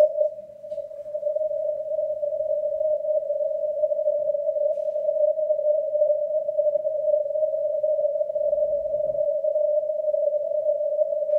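Amateur radio transceiver receiving on the 160 m band in CW mode, its narrow 600 Hz filter passing band noise as a steady hiss pitched around 600 Hz. A faint low rumble comes in briefly about eight seconds in.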